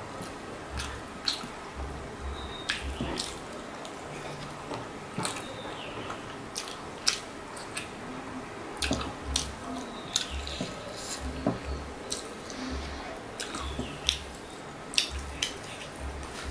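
Close-up wet eating sounds: chewing and lip smacks, with sharp clicks scattered throughout, as fingers wipe the last curry and rice off the plate and are eaten from.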